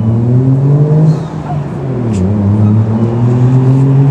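Car engine accelerating on the street, its pitch climbing, dipping sharply about two seconds in, then climbing again.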